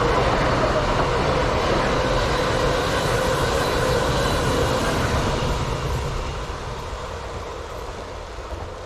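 A passenger train running past on the line, a steady rolling rumble with a faint steady whine in it, fading away over the last few seconds as it moves off.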